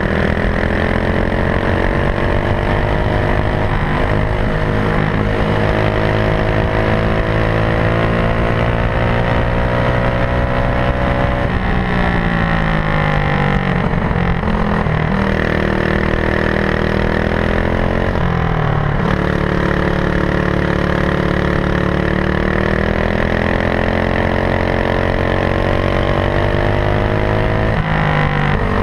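Racing kart engine at full throttle, heard onboard. Its pitch climbs steadily along the straights and drops sharply when the driver lifts for the corners: about twelve seconds in, again around eighteen seconds, and just before the end.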